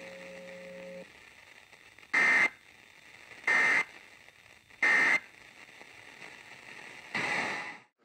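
Emergency Alert System end-of-message data bursts: three short, shrill digital buzzes about 1.3 seconds apart, played through an FM radio's speaker over a low hiss. They signal that the tornado warning broadcast is over. A rougher burst of noise comes near the end, just before the sound cuts off.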